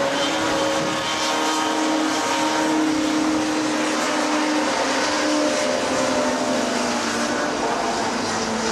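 Racing snowmobile engines running at a steady, even pitch, with a slight change in pitch near the end.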